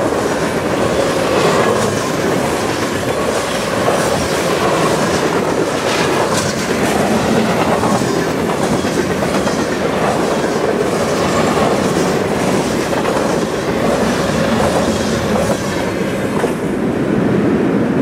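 Freight train of covered grain hopper cars rolling past at speed: a steady rumble of steel wheels on rail with rapid clickety-clack from the wheels. It thins out near the end as the last car goes by.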